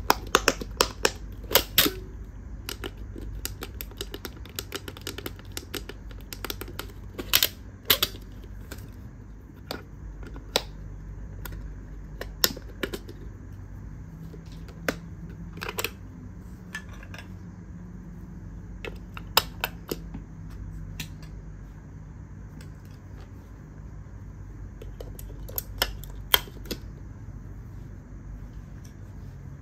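Sharp plastic clicks and taps from handling a pop-it fidget toy game console: a quick run of clicks at the start, then single or paired clicks every few seconds.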